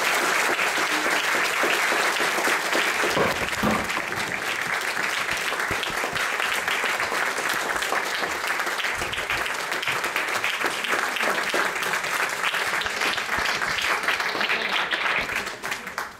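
Audience applauding with steady clapping that thins out and dies away near the end.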